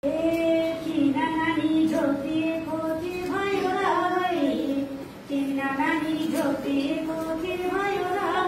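Female voice singing Nepali dohori folk verses in long held, sliding notes, one sung phrase after another with a brief break a little past the middle.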